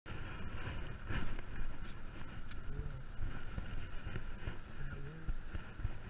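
Wind buffeting a GoPro's microphone, a rumbling, fluctuating noise, with a few faint clicks.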